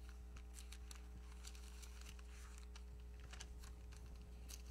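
Faint scattered light clicks and rustling from hands handling things on a pulpit, over a steady low electrical hum.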